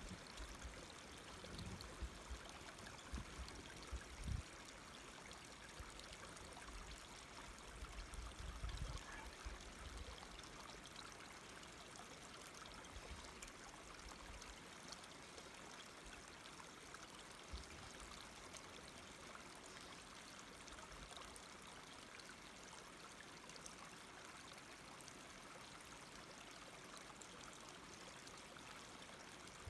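Faint, steady rushing hiss of forest ambience, with a few low bumps in the first ten seconds.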